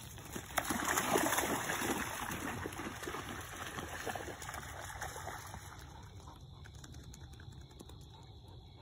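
Labradors wading and splashing through river water, loudest about a second in and fading away.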